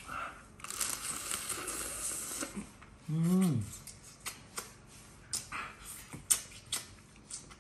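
Close-up mouth sounds of eating a hairy crab: a stretch of wet slurping and sucking at the shell, a short hummed "mm" about three seconds in, then a run of small wet smacks and clicks as the fingers are sucked clean.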